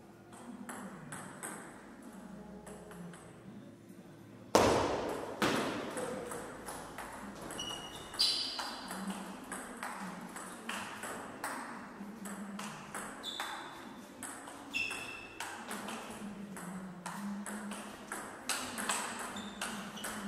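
Table tennis rally: the ball clicking back and forth off the paddles and the Donic table in a quick run of sharp ticks. One much louder knock comes about four and a half seconds in, and a few short high squeaks come later.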